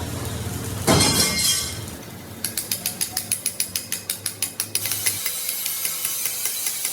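A mechanism clicking rapidly and evenly, about eight clicks a second for a couple of seconds, after a short burst of noise about a second in; the clicking then gives way to a steady hiss.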